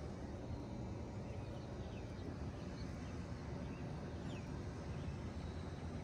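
Steady low rumble from a commercial heat pump's outdoor unit, with a few faint bird chirps over it.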